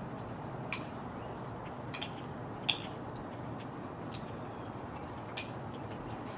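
Four short, sharp high ticks, the third the loudest, over a steady low background hiss.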